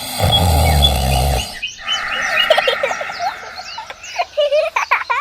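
A loud noisy burst with a deep rumble for about a second and a half, then many short, quick animal chirps that run on to the end.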